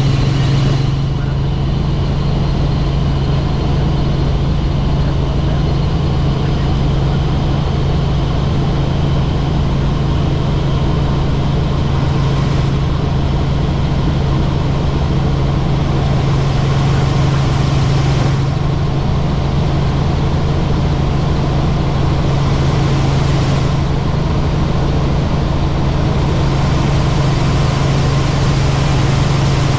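Helicopter in flight: a steady, loud drone of rotor and engine with a strong low hum, and a hiss in the upper range that swells and fades every few seconds.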